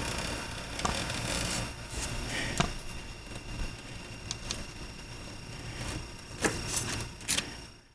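Razor knife slicing along the edge of the rubber spline to trim excess screen mesh, a faint scraping cut with a few sharper clicks and scrapes spread through it over a steady background hum.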